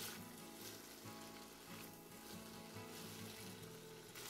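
Sliced onions sizzling faintly in hot olive oil in a pot as they are tossed with a silicone spatula.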